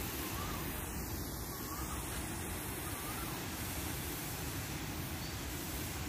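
Hand-pump pressure sprayer misting continuously, a steady even hiss over a low rumble.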